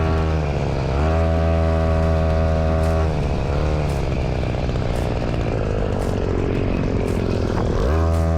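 An engine running hard at a steady speed, its pitch dipping and coming back up three times as it slows and picks up again.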